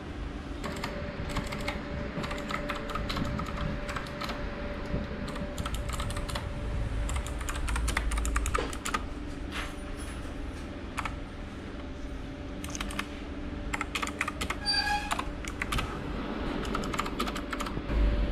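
Typing on a computer keyboard: quick runs of key clicks with short pauses between them, over a steady low hum. A short high chirp sounds briefly about fifteen seconds in.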